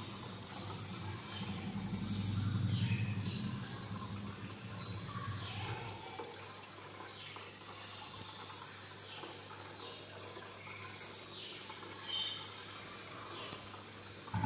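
Aquarium filter running, its water trickling and splashing into the tank with small repeated drips.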